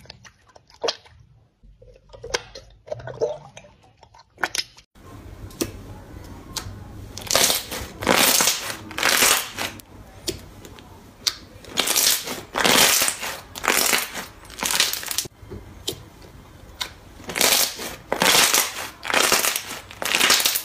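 Hands squishing and poking glitter slime, giving soft wet squelches and clicks, then, about five seconds in, hands stretching and pressing a thick slime, which gives a run of loud crunchy crackles about once a second as the air pockets in it pop.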